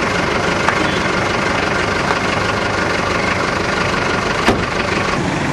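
Steady engine noise of a running vehicle, with two sharp clicks, one just under a second in and a louder one near the end.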